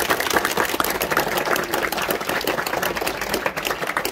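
Audience of schoolchildren clapping: dense, steady applause that eases slightly near the end.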